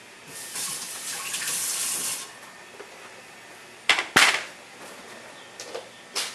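Tap water running for about two seconds, as when wetting a whetstone, then two sharp knocks close together about four seconds in and a few lighter clicks near the end.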